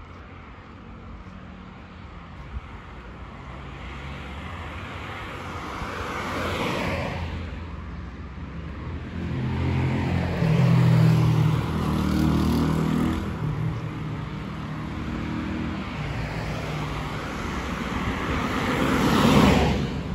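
Cars passing on a suburban road. One goes by about seven seconds in, a vehicle with a stronger, lower engine note passes in the middle, and the loudest pass comes just before the end.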